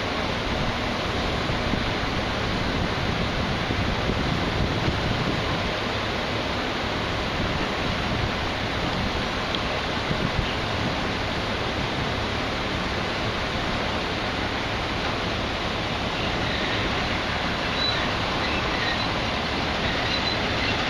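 Steady, even rushing noise of belt conveyors running during barge loading, with bulk material moving along the belts and through the telescopic loading chute.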